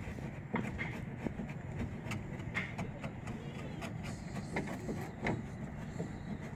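Scattered wooden knocks and clicks as a plank of a wooden boat frame is handled and fitted, over a steady low rumble.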